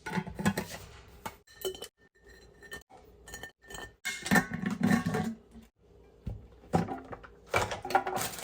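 Glass containers clinking and knocking as groceries are handled and put away, with two louder stretches of handling noise, near the start and about four seconds in.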